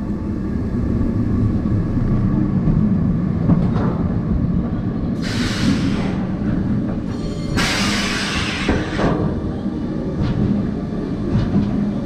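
Roller coaster train rumbling along its rails, with two loud rushes of wind over the microphone, about five and eight seconds in.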